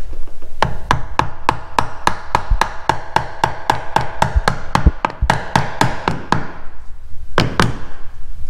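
Hammer tapping wooden slivers into the stripped screw holes of a door hinge to pack them: a quick, even run of sharp strikes, about three or four a second with a short ring, then a pause and two last strikes near the end.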